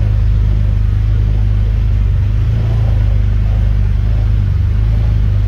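Can-Am Defender Limited's Rotax V-twin engine running at about 3,100 RPM in low range, heard from inside the closed cab as a steady low drone while the machine crawls over rocks.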